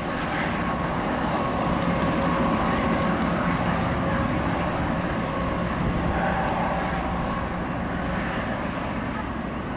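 Canadian Pacific EMD SD70ACu diesel locomotive leading a double-stack intermodal train, its engine running and its wheels rolling on the rail as it approaches. The rumble is steady, with a faint hum over it.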